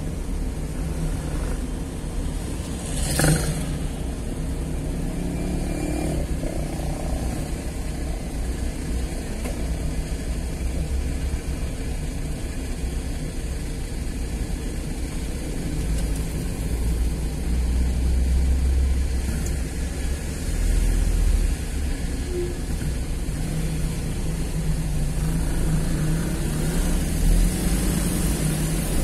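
Car driving slowly through town traffic: a steady low rumble of engine and road noise, with one sharp knock about three seconds in and a heavier low rumble in the second half.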